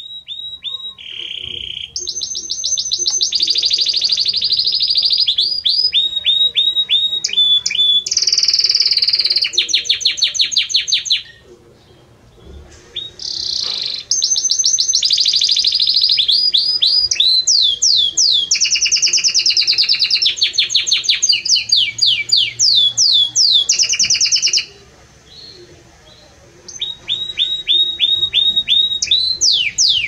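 Domestic canary (Belgian canary) singing loudly: long phrases of fast repeated notes and rolling trills, each phrase on a different pitch, with two short pauses, one about 11 seconds in and one about 25 seconds in.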